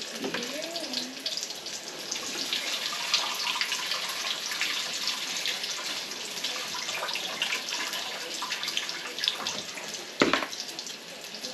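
Water running and splashing over chopped couve greens in a plastic colander, with a single sharp knock about ten seconds in.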